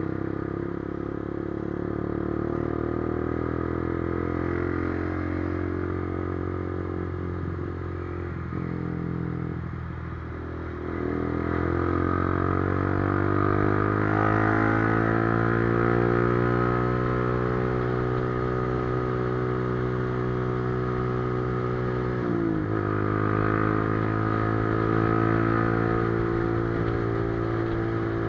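Motorcycle engine running under way, its pitch climbing steadily as it accelerates, then dropping sharply about two-thirds of the way through, as at a gear change, before holding steady.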